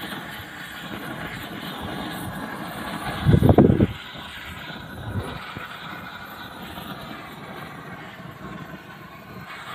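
Gas roofing torch burning with a steady rushing noise, its flame heating the seam of a torch-on bitumen waterproofing membrane so that the edge softens and sticks. A brief loud low rumble a little over three seconds in.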